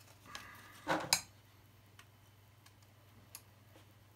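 Small plastic clicks and a brief scraping rustle that ends in a sharper click about a second in, as a strip of folded paper is slid between the motor pinion and spur gear of an RC crawler gearbox to set the gear mesh. A few faint ticks follow.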